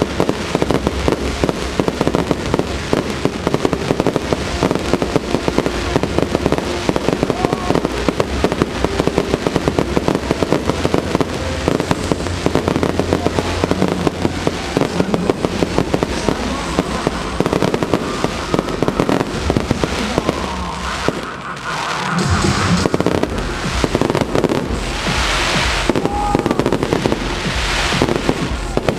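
Aerial fireworks display: a dense barrage of rapid popping and crackling bursts over a music soundtrack, easing briefly about three quarters of the way through before the bursts pick up again.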